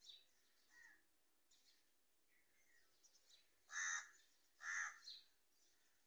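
A crow cawing twice, two short calls about a second apart a little past the middle, with faint chirps of small birds around them.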